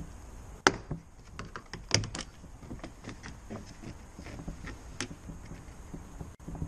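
Sharp plastic snaps and knocks as a Ford Fiesta door mirror is pried off the door with a screwdriver and lifted away. The two loudest snaps come about half a second and two seconds in, followed by lighter clicks and rattles of the plastic mirror base and its wiring connector being handled.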